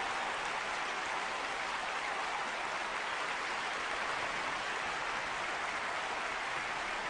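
Concert audience applauding, a steady, even clapping with no music.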